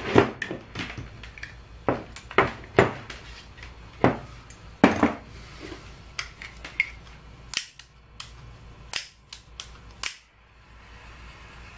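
Sharp clicks and knocks as tools and the plastic power-supply case are handled on a workbench. Near the end a small butane torch is clicked several times, then a faint steady hiss of its flame begins, ready to shrink heat-shrink tubing.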